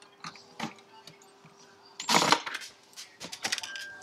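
Cordless drill being handled and briefly run into wood, with scattered clicks and rattles and one short loud burst about two seconds in as it makes a screw hole.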